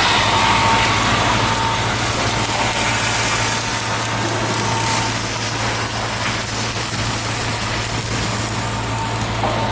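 Heavy machinery running steadily: a constant low hum under a dense mechanical noise, with a faint high whine that fades out about halfway through.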